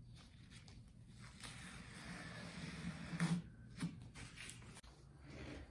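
Blue painter's tape being peeled off the glass panes of a freshly painted door, unmasking the glass: a drawn-out ripping rasp starting about one and a half seconds in, then a few light clicks and crinkles as the strip comes free.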